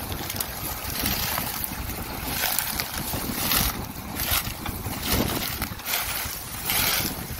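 Farm tractor engine running steadily, with gusts of wind buffeting the microphone in uneven surges.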